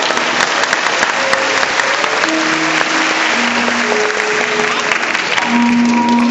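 An audience applauding, with held notes of music playing underneath; the clapping thins out near the end.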